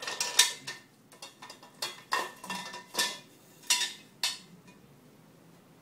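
Hard metal parts clinking and knocking together in an uneven series of about a dozen sharp strikes, several with a brief ringing tone, stopping a little after four seconds in.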